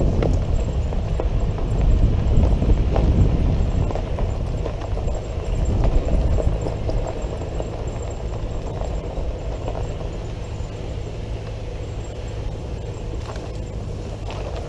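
Jeep CJ7 driving, its engine running with a steady low hum, along with occasional knocks and rattles.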